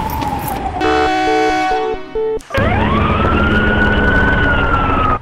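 A siren winds up from low to high and holds a steady wail. Before it, a tone falls at the opening and a pulsing electronic chord plays for about a second and a half.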